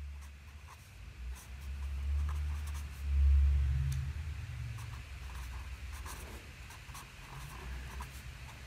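Marker pen writing on paper: short scratchy strokes as a heading is written, over a low rumble that swells about three seconds in.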